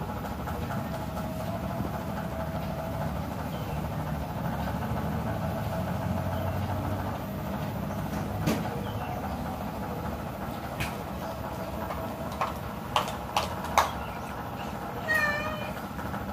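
A cat gives one short, wavering mew near the end, over a steady low rumble. A few sharp clicks come in the seconds before it.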